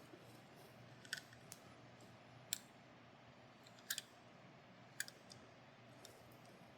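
A handful of light, sharp clicks and taps, spaced a second or so apart, from a die-cast toy car being handled and turned over in the hands, against near silence.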